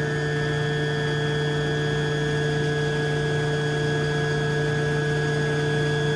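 Electric motor driving a centrifugal water pump, running steadily: a constant machine hum with several steady tones.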